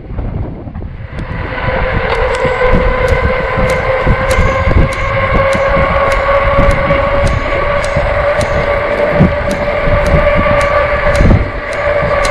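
Lectric e-bike running fast on pavement: a steady whine sets in about a second in and holds, over a low wind rumble on the microphone, with a faint regular tick about two to three times a second.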